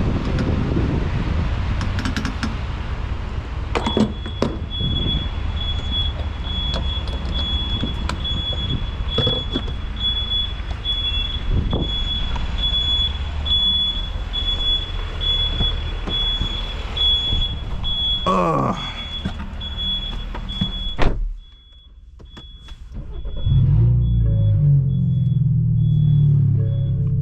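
A BMW F30 328i's straight-piped, turbocharged four-cylinder engine idling with a low rumble, along with scattered clicks and a high, evenly pulsing electronic beep. About 21 s in, the engine shuts off abruptly. A couple of seconds later a low, steady hum with several pitches starts up.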